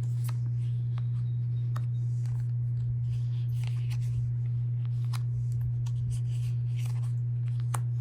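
Tarot cards being drawn and laid down: scattered soft clicks, taps and slides of card stock. A steady low hum runs underneath and is the loudest sound.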